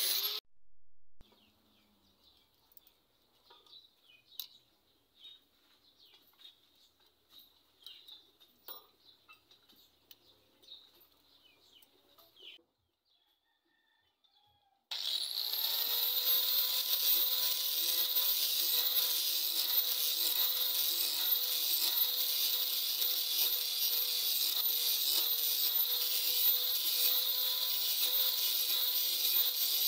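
An angle grinder cutting steel stops about half a second in, followed by faint scattered ticks. About halfway through, the grinder spins up with a rising whine and runs steadily, its flap disc grinding the steel of a tanto knife blade.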